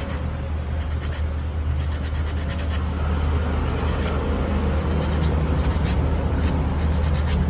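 Sandpaper on a block scraping in repeated short, scratchy strokes over a painted metal motorcycle handlebar clamp, sanding off the old chipped paint before repainting. A steady low hum runs underneath.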